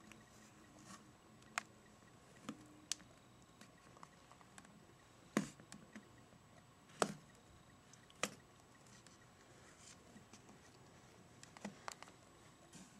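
Plastic deli cup and its snap-on lid being handled and opened: about ten scattered light clicks and taps, with two louder knocks around the middle.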